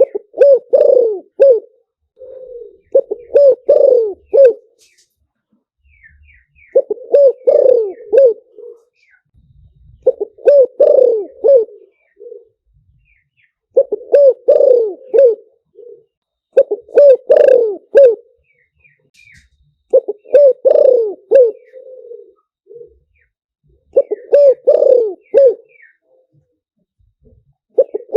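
Spotted dove cooing: a phrase of several low coos repeated about every three to four seconds, eight times over. It is a decoy call of the kind played to lure wild spotted doves.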